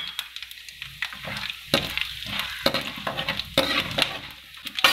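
Tempering spices sizzling in hot oil in a metal kadai, with a metal ladle scraping and clicking against the pan as they are stirred.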